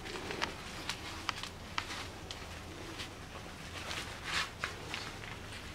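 Two chihuahua puppies play-fighting on artificial grass: light, scattered pattering and small clicks of paws and bodies scuffling on the turf, with a brief louder scuffle about four seconds in.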